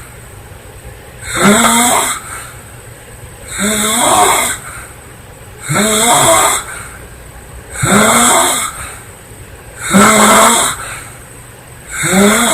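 A girl snoring loudly in a steady rhythm, six snores about two seconds apart. Each snore lasts about a second and has a rough, pitched sound that rises at its start.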